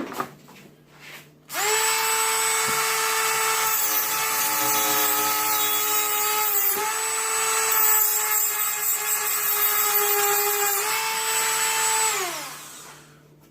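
Black & Decker rotary tool with a cutoff wheel spinning up to a steady high-pitched whine and grinding off protruding screw tips, its pitch dipping briefly as the wheel bites. It then winds down with a falling whine near the end.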